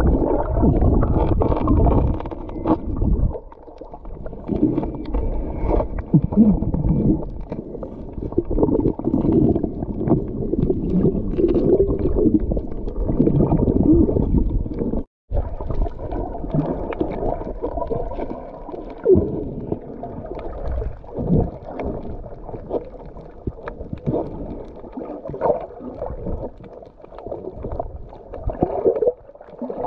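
Muffled underwater sound picked up by a submerged camera: water gurgling and sloshing with irregular dull knocks and handling bumps, all low and dull, cutting out briefly about halfway through.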